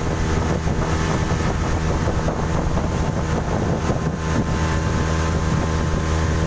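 Yamaha 40 hp outboard motor running steadily at speed, driving a fiberglass speedboat, with water rushing past the hull and wind on the microphone.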